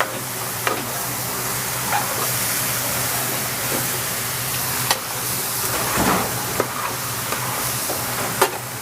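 Chicken pieces sizzling in a hot pan as they are stirred to brown, with a few short clicks and scrapes of the utensil against the pan.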